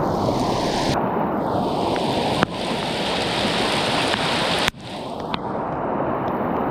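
Rushing stream water, a steady heavy rush with no pitch to it, changing abruptly twice.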